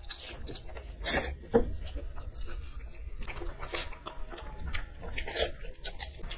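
Two people slurping and chewing instant noodles straight from the plate with their mouths, a series of irregular short wet slurps and chews.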